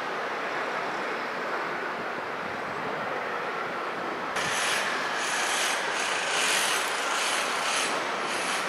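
Jet engines of a Boeing 737-800 airliner on landing approach, a steady rush. About halfway through, a louder, pulsing high hiss joins it.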